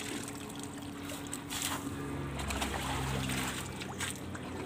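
Small splashes and drips of muddy shallow water as a hand works in a bucket holding caught fish and in the water beside it. A low steady hum joins about two seconds in.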